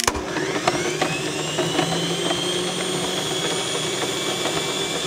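Countertop blender switched on: its motor whine rises as it spins up over the first couple of seconds, then runs steadily. A few knocks come early as it churns a jar of solid food: bacon, eggs, red cabbage, candy and herring.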